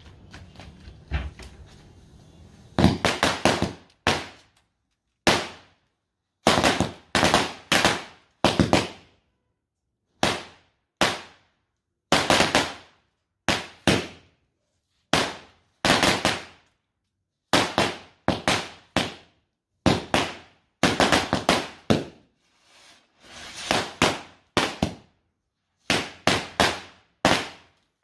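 A 100-cracker firecracker string (ladi) going off: sharp bangs one after another, singly and in quick clusters of two to four, starting about three seconds in, with short gaps between clusters and a few softer pops near the end. The crackers go off separately, each bang sounding a little different.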